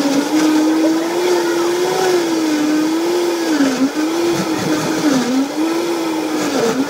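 Countertop blender running at full power, churning ice and liquid for a smoothie. Its motor pitch wavers and dips several times as the blades bite into the ice.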